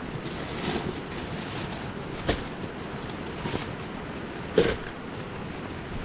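Steady rushing outdoor noise with a few sharp knocks and rustles from camping gear being handled, the loudest about two seconds and four and a half seconds in.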